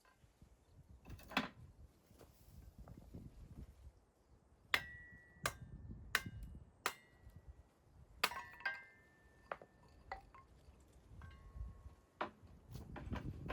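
Tableware being handled: about a dozen light, separate clinks, several ringing briefly.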